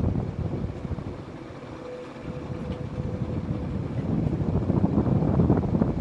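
Evergo 4P-8CLW ceiling fan running at speed, its downdraft buffeting the microphone with gusty wind noise that sets in suddenly and grows louder toward the end. A faint steady hum shows for a second or so partway through.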